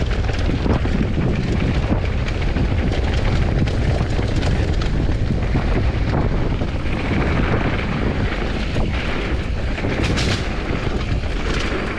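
Wind buffeting an action camera's microphone as a Commencal Supreme DH downhill mountain bike rolls down a dirt-and-rock trail, with a steady rumble of tyres on the ground and frequent rattles and knocks from the bike over rough terrain.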